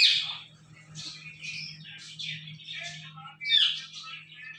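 Ringneck parakeet squawking and chattering, with a sharp loud call at the start and another loud call rising in pitch about three and a half seconds in.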